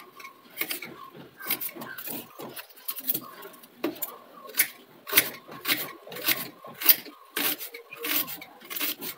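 Kitchen knife slicing a red onion thinly straight on a granite countertop: irregular sharp clicks of the blade striking the stone, a little under two a second.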